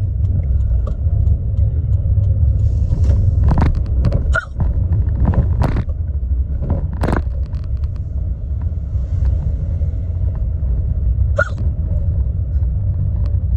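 A woman hiccuping in a moving car: about six short, sharp, deep hiccups, most of them in a cluster a few seconds in and one more later, over the steady low rumble of road noise in the cabin.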